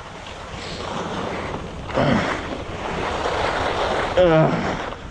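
Skis hissing and scraping over packed snow, with wind buffeting the microphone; the noise builds up about a second in and stays loud.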